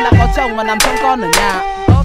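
Hip-hop style background music with a steady beat.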